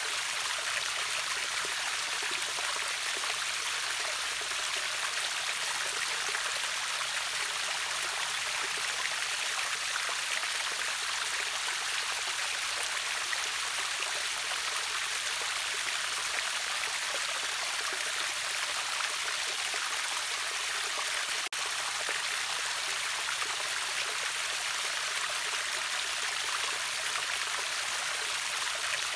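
River waterfall: water rushing steadily as an even, hissy wash with little low rumble. The sound dips for an instant about 21 seconds in.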